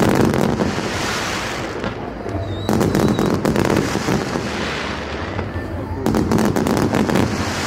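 Aerial fireworks bursting in volleys of sharp bangs followed by dense crackling. The volleys come in three clusters, about three seconds apart.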